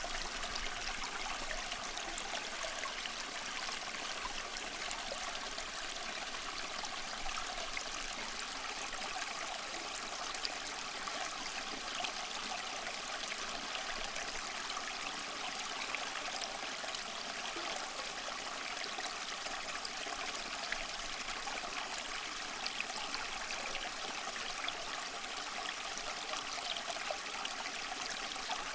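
Water trickling and splashing steadily down a small homemade cement waterfall fountain.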